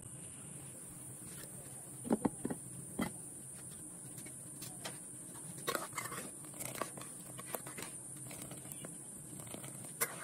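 A metal ladle stirring thin, simmering hog plum chutney in an aluminium pot, with sharp clinks and knocks of metal on the pot: a cluster about two seconds in, more around six seconds, and one near the end. Under them runs a steady faint background noise.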